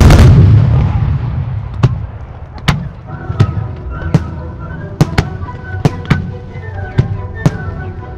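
Fireworks display: a large aerial shell bursts with a loud boom at the start, its rumble fading over about two seconds, followed by a string of about a dozen sharp bangs from exploding shells, roughly one every half second to second, with music underneath.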